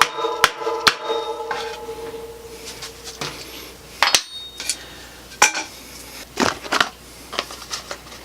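Metal ringing under quick, evenly spaced hammer strikes on a bottom bracket bearing press tool, stopping about a second in and the ring dying away. Scattered metal clanks and clicks of the tools being handled follow.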